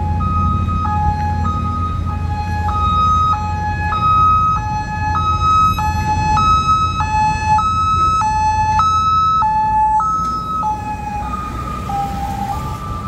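Emergency vehicle siren sounding a two-tone hi-lo pattern, alternating high and low notes about every half second, over a steady rumble of road traffic. Both tones drop slightly in pitch about eleven seconds in.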